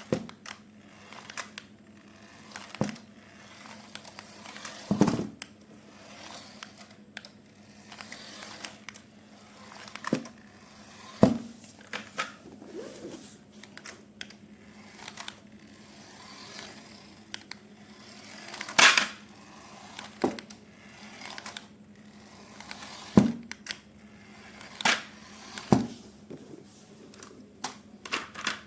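Irregular clicks, knocks and rustling from hands handling toy packaging and plastic toy parts, a few sharper knocks standing out, over a faint steady hum.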